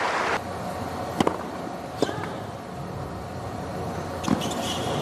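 Crowd applause dying away about half a second in, then a hushed stadium in which a tennis ball is struck sharply a few times, with the crowd noise starting to swell again near the end.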